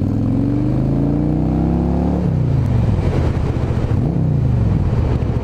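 Yamaha V-Star 650's V-twin engine accelerating, its pitch climbing for about two seconds, then dropping suddenly and falling away. It gives a brief rise and fall about four seconds in and then runs steadily.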